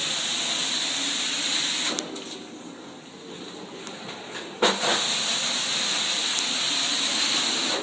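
Water-extraction equipment, a vacuum extraction wand drawing air and water, giving a loud, steady hiss. The hiss drops away about two seconds in and starts again abruptly with a sharp knock a little past halfway.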